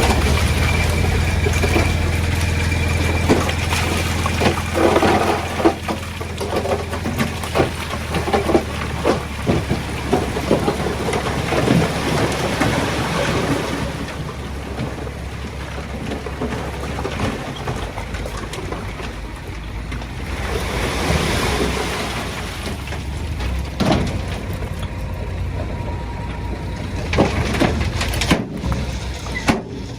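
Komatsu D20A crawler bulldozer's diesel engine running with a steady low drone, with irregular clanks and rattles of tracks and stone, busiest in the first half. The engine drone drops back a little past halfway.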